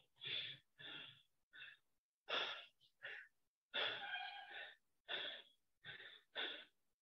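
A man breathing hard after exercise: short, quick breaths about every half second to second, with silence between them.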